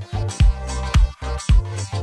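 Upbeat background dance music with a steady beat of about two beats a second.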